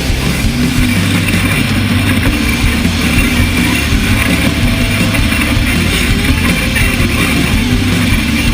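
Engine of a desert off-road race vehicle running steadily, with music mixed in underneath.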